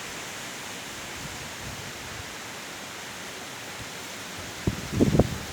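Strong wind rushing steadily through tall eucalyptus trees, an even hiss of leaves. Near the end gusts buffet the microphone in a few loud low rumbles.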